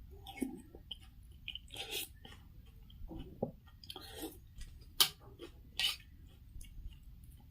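Close-miked chewing and eating of pork noodle soup (thukpa): irregular wet mouth clicks and short smacking sounds, with a sharp click about five seconds in.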